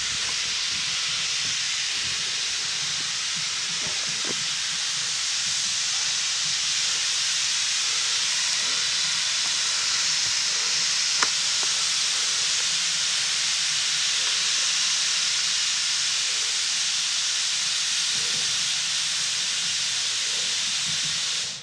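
Small tank steam locomotive blowing off steam, a loud steady hiss that holds without a break and cuts off suddenly.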